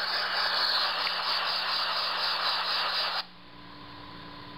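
Loud hiss of static from a live video stream's broken audio, played through computer speakers. About three seconds in it drops suddenly to a faint hiss with a thin steady tone and a low hum.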